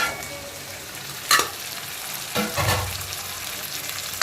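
Chopped onions, garlic, green chillies and curry leaves sizzling in hot sesame oil in a heavy pan, with a sharp knock about a second in and a duller thump a little later, as of a utensil against the pan.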